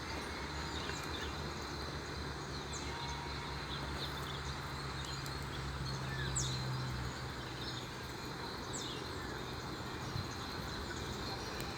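Scattered short, high chirps from small birds, a few seconds apart, over a steady background hiss, a low hum and a faint thin whine.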